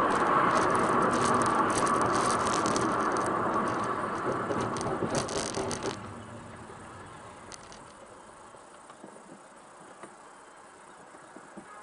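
Mechanical rattling and clatter, loud at first and fading, that stops suddenly about six seconds in, leaving only faint noise with a few light clicks.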